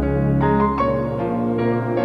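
Background music: soft keyboard or piano notes over a sustained pad.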